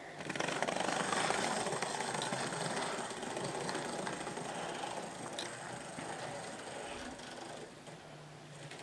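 Hornby Class 37 model diesel locomotive running along its track: its small electric motor whirring with wheel-on-rail noise, loudest about a second in and then gradually fainter.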